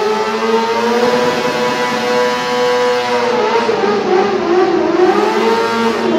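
Suzuki sportbike engine held at high revs during a rear-tyre burnout. Its pitch sags and climbs again twice as the throttle is worked.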